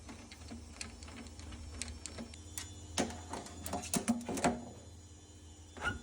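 Plastic clicks and knocks as a boiler's condensate trap is handled and worked loose, bunched about three to four and a half seconds in and again near the end, over a steady low hum.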